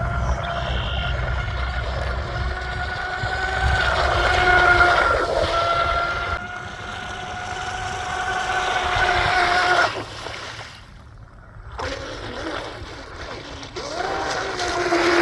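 Pro Boat Valvryn R/C boat's brushless electric motor running near full throttle, a steady high whine with wind on the microphone. About ten seconds in the whine drops away for a couple of seconds as the throttle is backed off, then rises again as the boat is powered back up.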